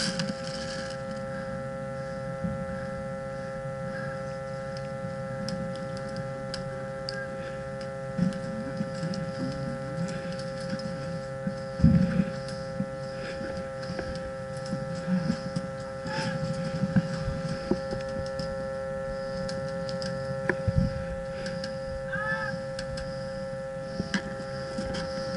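A steady electrical hum made of several fixed tones, with scattered clicks and a few dull knocks, the loudest about twelve seconds in and again near twenty-one seconds.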